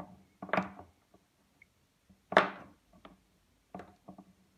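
Small screwdriver turning a bolt in the base of a mitre saw: a few short scrapes and knocks, the loudest about two and a half seconds in.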